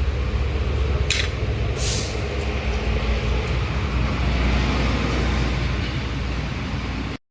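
Steady low engine drone, with two short sharp hisses about one and two seconds in; it cuts off suddenly near the end.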